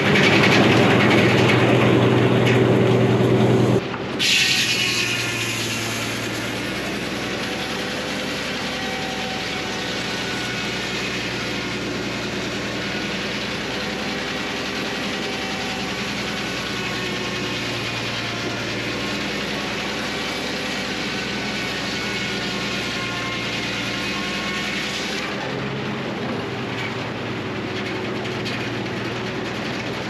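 Frick circular sawmill running, its blade sawing along a poplar log as the carriage feeds it. Loudest for the first four seconds, then the sound drops suddenly and the mill runs on steadily.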